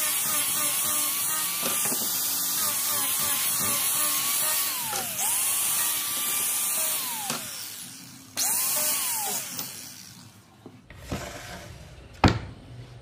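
Electric power tool running with a steady whine and hiss, its pitch dipping sharply and recovering twice before it stops; it starts again briefly and winds down. A single sharp knock near the end.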